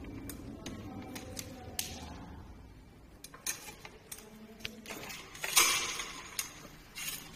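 Scattered small clicks and clinks of plastic cable connectors and wiring handled against the OUXI V8 e-bike's frame and battery housing, with a louder rustle about five and a half seconds in.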